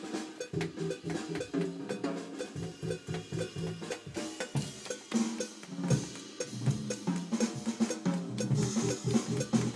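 Electric bass and drum kit playing a busy jazz-fusion groove together: quick, closely spaced bass notes under drum strokes and steady cymbal hiss.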